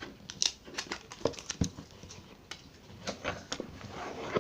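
Hands opening a cardboard product box and handling the packaging inside: irregular clicks, taps and rustles.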